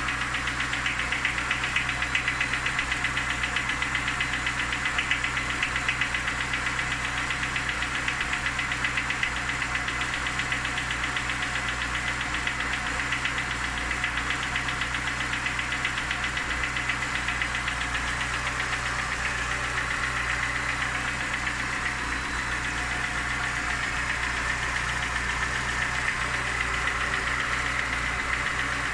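Lada Niva engine running steadily with a fast, regular knock from the engine. The owner does not know what causes the knock.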